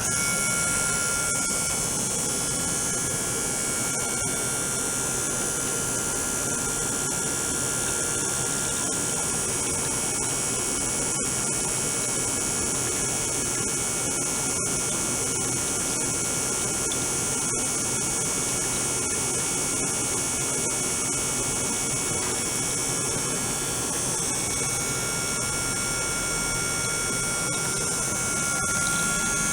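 Water-circulation pump and ultrasonic equipment on a water tank running steadily: a hum with a strong high hiss and thin, steady whining tones, starting abruptly.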